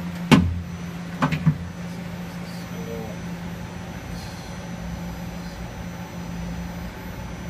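2003 Daewoo Puma 2000SY CNC lathe humming steadily while powered up. There is one sharp clack about a third of a second in and a few lighter knocks about a second later.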